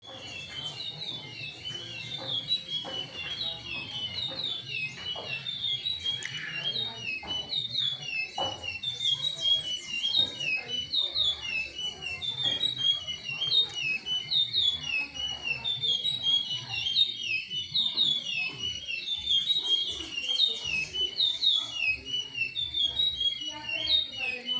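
Curió (chestnut-bellied seed finch) singing a long, unbroken run of quick whistled notes.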